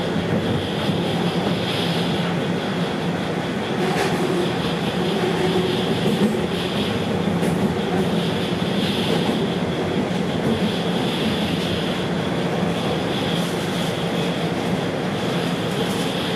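Toronto subway train running through the tunnel between stations, heard from inside the car: a steady rumble of wheels on rail with a low motor hum. A high hiss swells and fades every second or two, and there is one sharp click about four seconds in.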